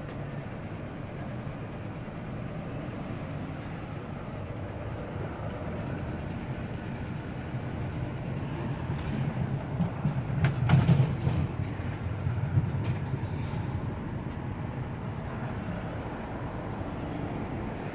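Low, steady rumble of street traffic that swells to a peak about eleven seconds in, as a heavy vehicle passes, then eases off. A few sharp clicks come at the loudest point.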